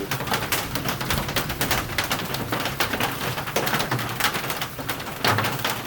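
Hailstones hitting hard surfaces in a dense, irregular patter of sharp clicks and cracks, over a steady hiss of heavy rain.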